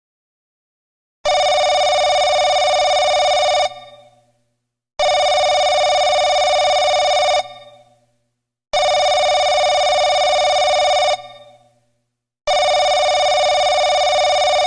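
Telephone ringing: four identical rings, each about two and a half seconds long, with a pause of just over a second between them.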